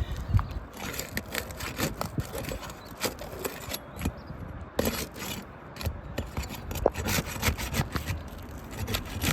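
Irregular scraping and sharp clicking of a flat bar working under asphalt roof shingles, prying them up and tearing their sealant strips loose. The shingles are cracking and shedding granules as they are lifted.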